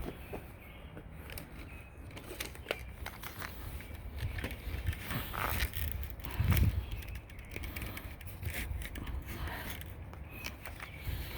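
Hand-tool work on heavy-duty pet screen in a screen door frame: irregular scraping, snipping and clicking, with a louder knock about six and a half seconds in.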